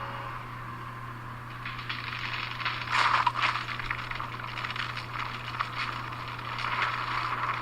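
Crackling, rattling noise over a steady low hum; the crackle grows denser about one and a half seconds in, with a louder cluster around three seconds.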